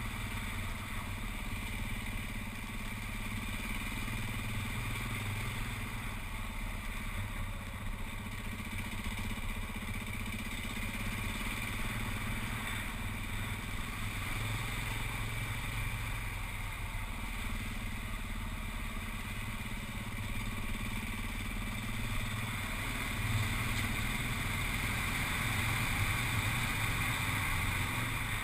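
Motorcycle engine running at a steady pace while riding, heard from a camera mounted on the bike.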